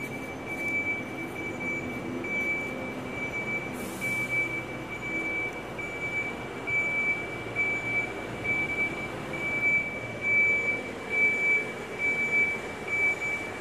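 Volvo FE 300 recycling truck reversing: its reversing alarm sounds a steady high beep about twice a second over the low rumble of the diesel engine, which grows louder in the second half as the truck backs closer.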